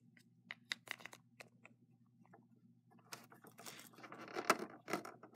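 Plastic Littlest Pet Shop toy figures and a small plastic basket handled by hand: a few light clicks, then from about three seconds in a stretch of rustling and scraping with sharper knocks near the end, over a low steady hum.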